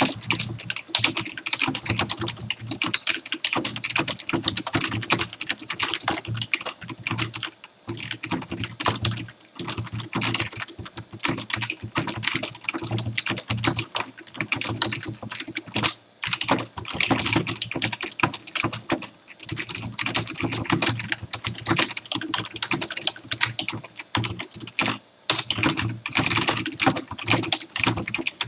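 Computer keyboard being typed on quickly and continuously, a dense run of key clicks broken by a few short pauses.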